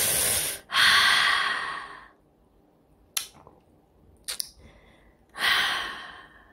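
A person sighing heavily: a quick breath in, then a long sigh out. Two small clicks follow, and near the end comes another long sigh.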